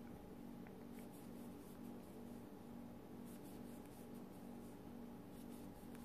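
Faint scratchy rubbing of a metal crochet hook drawing cotton yarn through stitches, in a few soft brushes, over a steady low hum.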